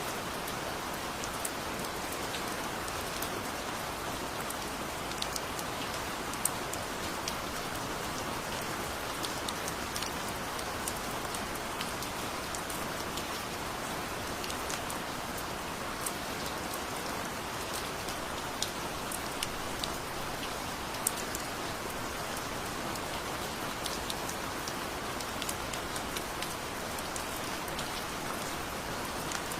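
Steady heavy rain, a constant hiss with many individual drops ticking sharply on a hard surface.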